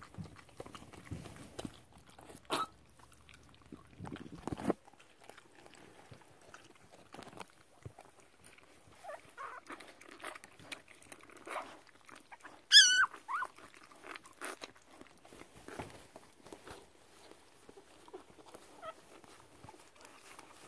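A standard poodle licking and nuzzling her newborn puppy: soft wet licking and rustling of the bedding, with a few thumps in the first seconds. About two-thirds of the way through, one short, high-pitched wavering squeal, the loudest sound, typical of a newborn puppy being licked.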